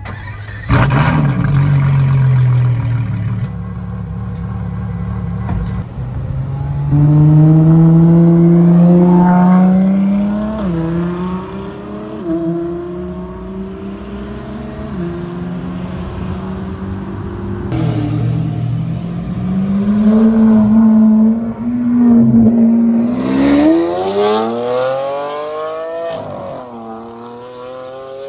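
Supercar engine accelerating hard at full throttle, its pitch climbing and dropping back at each of several quick upshifts. Near the end it climbs steeply again, then the pitch falls away.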